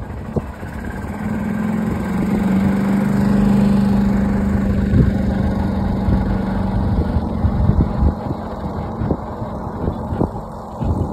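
A motor vehicle's engine hum swells to a peak and then fades over the first several seconds, over a low rumble of road and wind noise, with scattered thumps in the second half.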